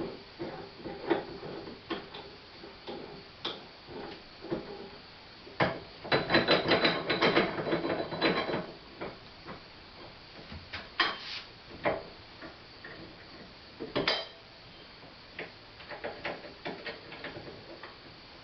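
Metal parts of a cast-iron Corona hand corn mill clicking, clinking and rattling as it is assembled, with a dense run of rapid rattling clicks about six seconds in and a few sharper single knocks later.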